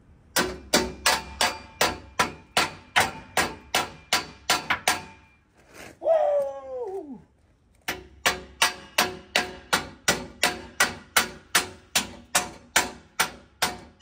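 Hammer striking metal over and over, about three to four blows a second, each with a faint metallic ring. The blows come in two runs with a pause of about two seconds between them.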